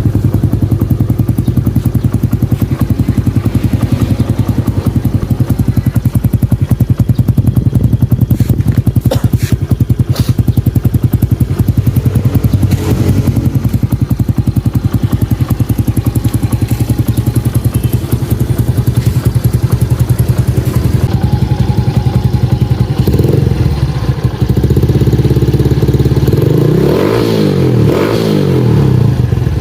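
Kawasaki Fury 125 underbone motorcycle engine running through an aftermarket Exos X6 exhaust pipe, idling steadily with an even pulsing beat, then revved up and down a few times in the last several seconds.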